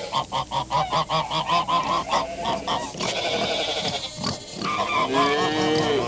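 Farmyard animal sound effect: a run of quick repeated calls, about five a second, for nearly three seconds. Then, about five seconds in, longer calls that rise and fall.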